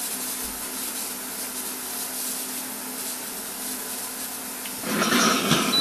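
Pressure cooker of an automated cooking machine hissing steadily under pressure, at about 110 °C and 80 kPa, with a faint low hum underneath. About five seconds in the hiss gets louder and rougher.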